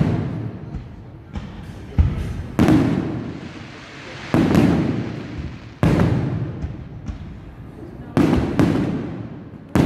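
Aerial fireworks shells bursting: about eight sharp booms, some in quick pairs, each followed by a rumbling decay lasting a second or more.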